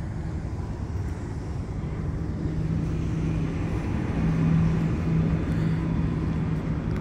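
Steady low rumble of road traffic with a steady engine hum, a little louder from about four seconds in.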